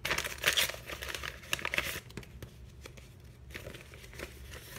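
Paper envelope being torn open and the folded sheet inside handled, a run of crinkling and rustling that is busiest in the first two seconds and fainter after.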